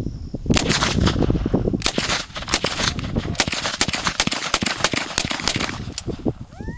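Semi-automatic gun firing a rapid, uneven string of about twenty shots, roughly four a second, starting about half a second in and stopping about a second before the end.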